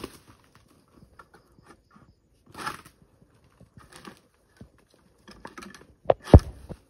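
Long-pole harvesting sickle knocking and scraping against an oil palm's frond bases and fruit-bunch stalk: scattered light clicks, a rustle about two and a half seconds in, and two sharp, heavy knocks near the end, the loudest sounds here.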